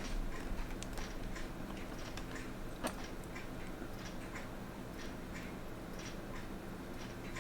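Faint, irregular small clicks and taps of fine tools handling a tiny time marker on a watch dial, over a low steady hum.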